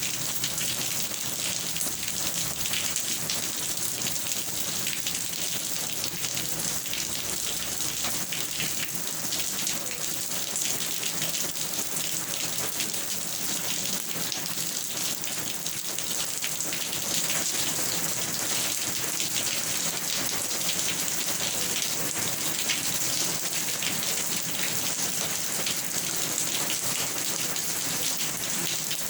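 Steady rain falling, a dense even hiss of drops pattering on a surface with fine individual drop ticks.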